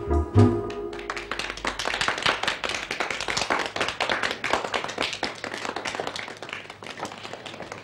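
A dance band's organ music ends on a final chord, then the dancers applaud with a long run of hand-clapping that thins out near the end.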